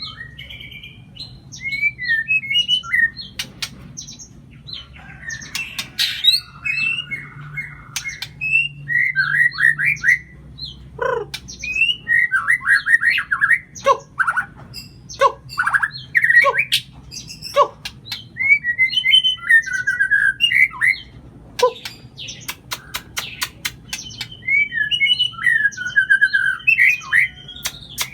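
White-rumped shama (murai batu) singing: bursts of varied whistled phrases mixed with sharp clicking notes, with short pauses between the bursts.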